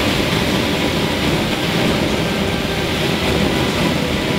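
Steady rushing noise with a low rumble.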